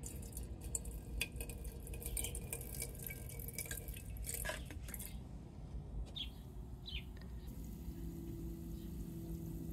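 Water pouring into a glass laboratory beaker onto scrap circuit-board pieces, splashing with small glassy clicks for the first few seconds. It then quietens, with two short high chirps and a low steady hum starting near the end.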